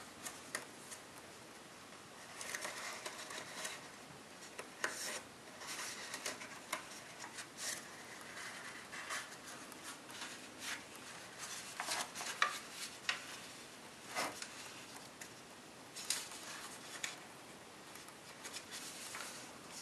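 Copper tissue foil crinkling and rustling as fingers fold and crease it: irregular soft scrapes with sharper crackles.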